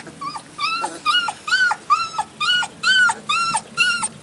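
23-day-old Central Asian Shepherd (Alabai) puppy crying in a steady run of short, high whines, about three a second, each ending in a sharp drop in pitch.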